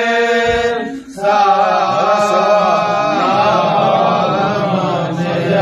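A solo voice chanting an Urdu Muharram elegy in long, drawn-out melodic phrases, with a short breath about a second in.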